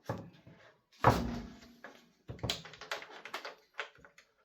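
Plastic knocks and clicks from a leaf blower's housing and blower tube being handled as the tube is seated and its lock clip pushed in: one solid knock about a second in, then a string of short taps and clicks.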